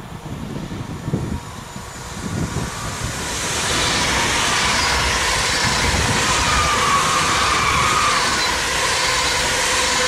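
Red double-deck electric regional train approaching and passing close by. At first there are low gusts of wind on the microphone, then from about three and a half seconds in a loud, steady rush of wheels on rail with a faint high whine.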